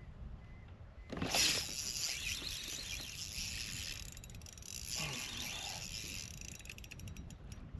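Fishing reel working while a bass is fought on the line: a whirring, clicking reel mechanism that starts suddenly about a second in, with a quick run of clicks near the end.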